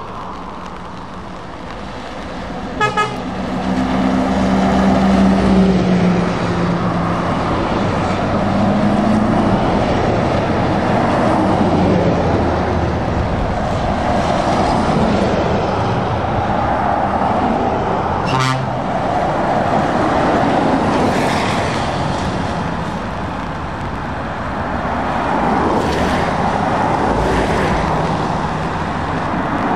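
Heavy trucks passing one after another on a wet road: diesel engines running and tyres hissing on the wet surface. A quick double horn toot sounds about three seconds in, and another short toot past the middle.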